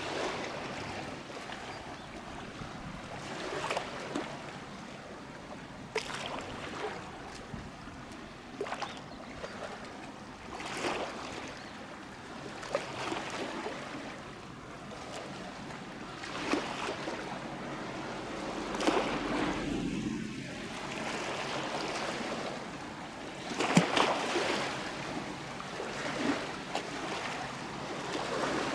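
Waterside wind and water noise: a steady rushing hiss with short, irregular surges every few seconds, and no ship's horn.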